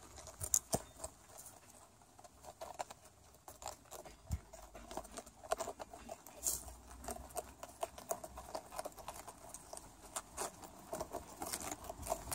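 Rabbits munching a head of cabbage: many quick, irregular crunching clicks as they bite and tear the crisp leaves.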